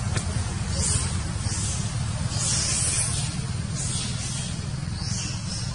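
Outdoor background noise: a steady low rumble with short hisses coming and going about once a second.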